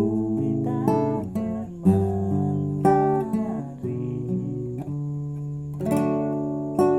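Classical guitar being played: notes and chords plucked about once a second and left to ring, with one or two notes sliding in pitch.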